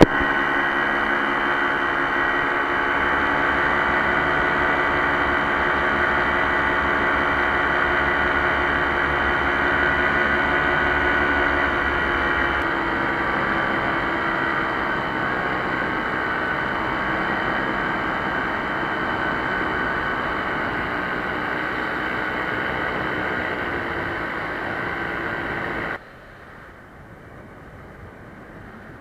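Paramotor engine and propeller running steadily in flight, a constant drone. Near the end the sound drops suddenly to a much quieter hiss.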